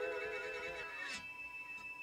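Background music: a guitar chord ringing on and slowly fading, its pitch wavering slightly about a second in.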